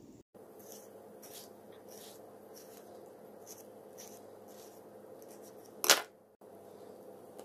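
Kitchen knife cutting and scoring mango flesh on a wooden cutting board: soft, short scraping strokes of the blade about every half second. Near the end there is a single sharp knock on the board.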